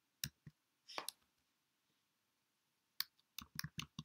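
Faint keystrokes on a computer keyboard: a few taps in the first second, a pause of about two seconds, then a quick run of keys near the end.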